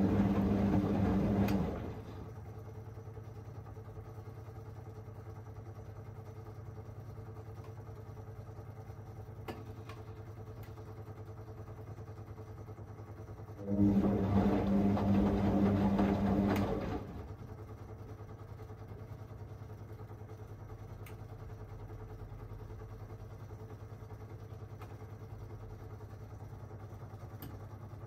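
Whirlpool Aqualine AWM1860 washing machine in its synthetics 40 °C main wash, turning the drum in short goes: the motor runs with a steady hum for about three seconds, then rests for about ten seconds. One turn ends about two seconds in and another runs in the middle. A quieter low hum carries on between turns.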